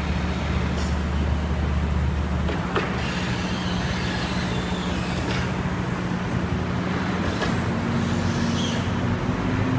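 Hydraulic drive of a moving-floor (walking floor) trailer running while its aluminium floor slats slide back and forth. It makes a steady mechanical hum whose pitch changes about two and a half seconds in and again near the end, with a few faint clicks.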